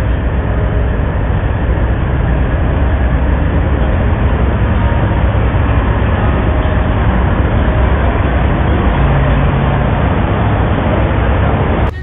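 Steady, loud rumble of big-rig diesel engines running, with a deep, even drone under a noisy haze. It cuts off abruptly just before the end.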